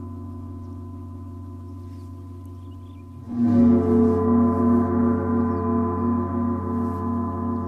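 Gongs ringing: a long fading hum of many overlapping tones, then about three seconds in a new gong stroke swells up, its low tone sliding briefly before settling, and rings on with a slow wavering beat.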